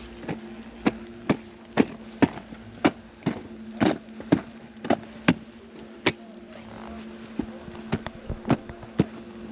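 Skis and ski boots knocking on packed snow as a beginner skier steps and shuffles along: sharp knocks about twice a second for six seconds, then a few uneven ones. A steady low hum runs underneath.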